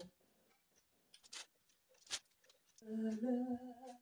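A few sharp clicks, then from about three seconds in a person humming a tune.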